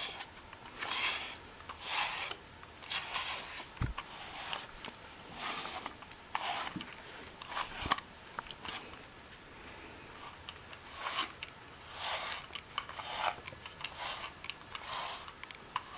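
A brush drawn through a cat's fur in repeated rasping strokes, roughly one a second, with a pause of a couple of seconds partway through. Two brief soft knocks are also heard.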